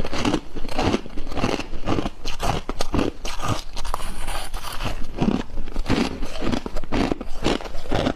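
Close-up chewing of freezer frost: a steady run of crisp crunches as the ice is bitten and ground between the teeth, a few bites every second.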